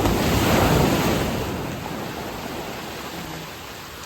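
Ocean wave breaking on the beach: a loud rush of surf that peaks in the first second, then slowly fades as the water washes back.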